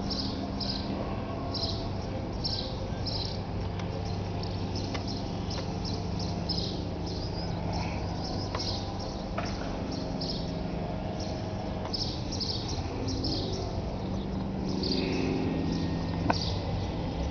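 Small birds chirping repeatedly, several short chirps a second, over a steady low hum.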